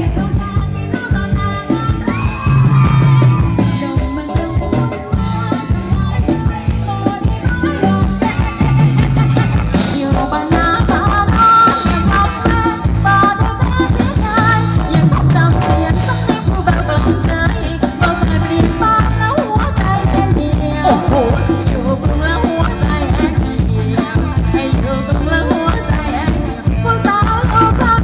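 A live band playing Thai ramwong dance music over loudspeakers, with a singer and a steady drum beat.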